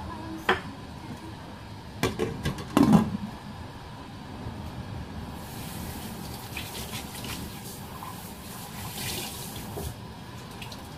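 Pot of water on a gas burner coming to the boil, with a steady hiss and bubbling that gets stronger in the second half. A few sharp knocks come about half a second in and again two to three seconds in.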